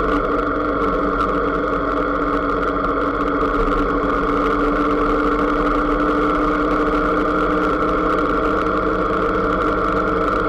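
Motorcycle engine running at a steady, even speed while riding slowly.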